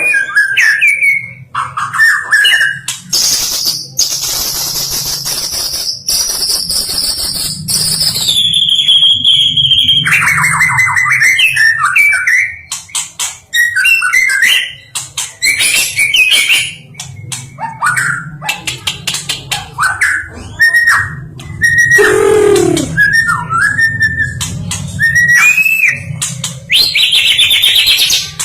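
White-rumped shama (stone magpie) singing a long, varied song of clear whistles, some held and gliding down in pitch, mixed with rapid chattering clicks and trills.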